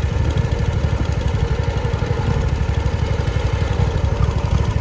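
Lawn mower engine running steadily, with a dense low pulse.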